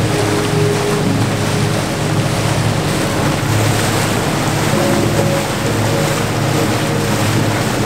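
Pontoon boat under way: its motor runs with a steady drone, mixed with wind buffeting the microphone and choppy water washing against the hull.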